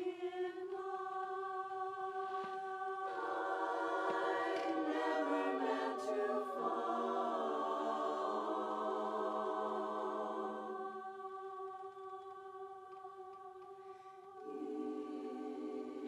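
Women's barbershop chorus singing a cappella in close four-part harmony. It opens on a held chord, more voices join and swell about three seconds in, then thins to a few sustained high notes before the full chorus comes back in near the end.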